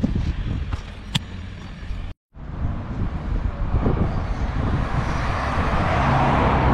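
Outdoor traffic noise: a vehicle passing, its noise swelling over the last few seconds, after a brief dropout in the sound.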